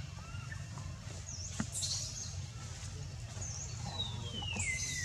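Forest birds calling: a few short arched chirps, then near the end a long whistle that falls steadily in pitch, over a steady low rumble.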